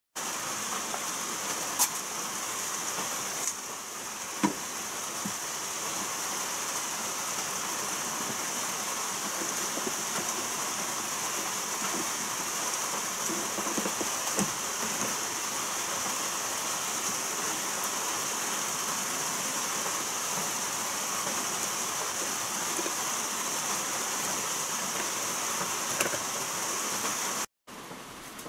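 A steady high-pitched hiss with a few sharp plastic clicks as the car's ceiling grab handle is worked loose.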